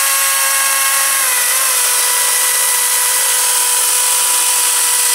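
Makita DUC400 36 V (18 V x 2) brushless cordless chainsaw running at full speed with a steady high whine. About a second and a half in its pitch drops slightly and holds lower as the chain bites into a pressure-treated 4x4 post under load.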